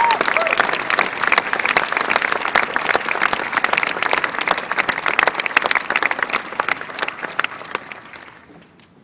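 Crowd applauding, a dense patter of many hands clapping that dies away over the last couple of seconds.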